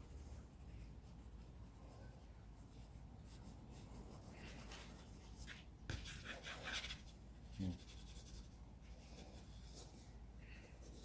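Pencil scratching on sketch paper in short strokes, faint, with a busier flurry of strokes about six seconds in. A brief low bump just before eight seconds is the loudest moment.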